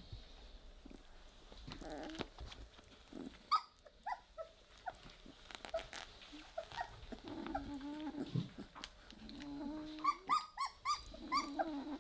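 Three-week-old Weimaraner puppies playing, with small low growls mixed with short high squeaks and yips, and a quick run of squeaks about ten seconds in.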